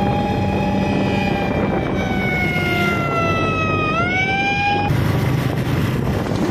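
A siren wailing over a steady rushing noise: its pitch sinks slowly for a few seconds, sweeps quickly back up about four seconds in, then cuts off just before five seconds.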